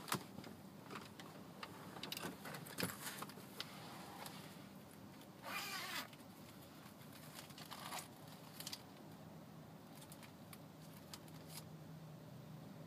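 Objects being handled by hand inside a car cabin: scattered light clicks and knocks, with a short rustle about five and a half seconds in, over a faint steady low hum.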